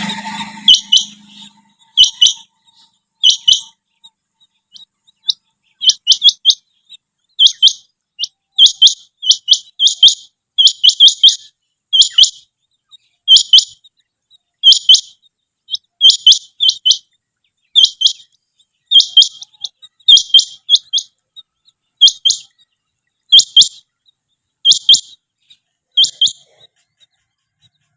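Rain quail (chinga batair) calling: short, sharp, high-pitched double and triple notes, repeated about once a second.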